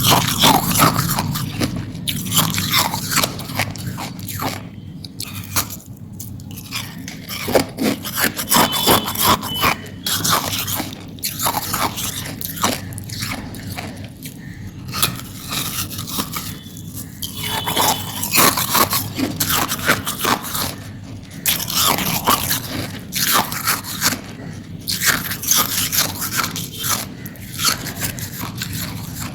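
Hard ice being bitten and chewed close to the microphone: dense runs of crisp crunching and crackling, broken by short pauses between bites.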